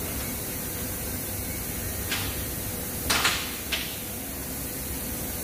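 Three brief scrapes and knocks of metal parts as the lower control arm is handled by hand under the car, the loudest about three seconds in, over a steady workshop background hum.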